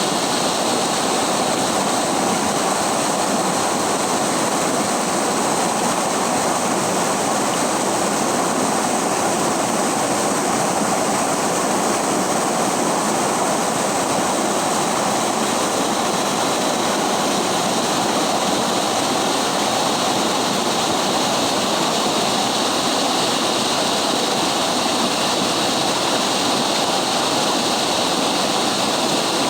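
River water rushing and splashing over rocks, a steady, even noise with no break or change.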